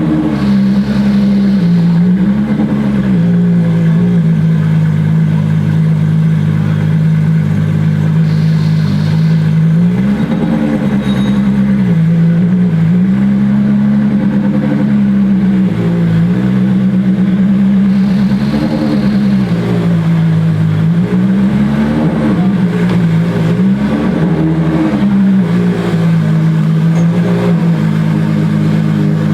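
Ferrari FXX Evo's V12 engine running at a steady, fairly high idle, with about six short throttle blips that briefly raise its pitch.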